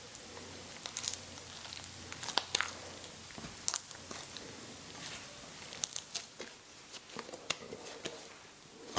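Scattered light clicks, taps and crinkling, a dozen or so irregular small handling noises.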